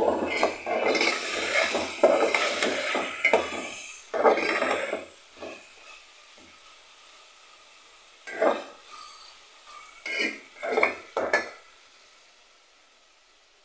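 A long metal spoon scraping and clattering against a large aluminium pot as beef pieces are stir-fried (bhuna) in oil with ginger-garlic paste. Continuous stirring for about the first five seconds, then a few separate strokes near the end.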